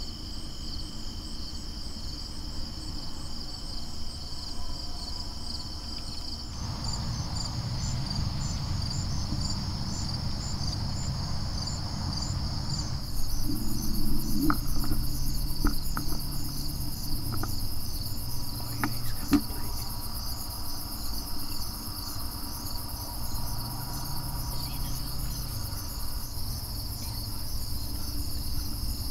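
Crickets and other insects chirping in a steady high chorus, with rapid even pulses. A low rumble comes in about six seconds in, and a few faint clicks sound near the middle.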